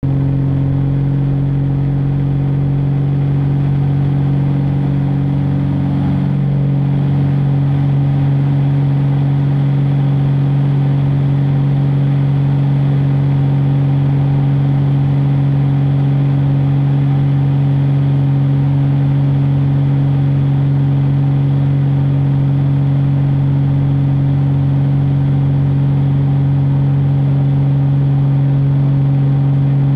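Single-engine aerobatic propeller plane's engine and propeller running at full power through the takeoff roll and climb. It makes a loud, steady drone with a strong low hum.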